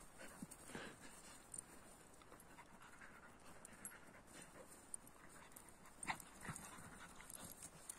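Faint panting and scuffling of two dogs play-fighting, with a couple of short sharp sounds about six seconds in.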